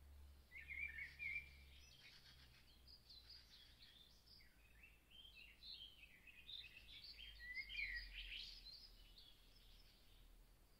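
Birds chirping and twittering, many short quick calls overlapping one another, over a faint low hum.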